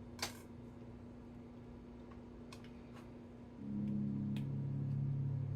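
A sharp click, then a few faint light taps of a kitchen knife as an avocado is cut on the board. A steady low hum of an appliance sets in a little past halfway.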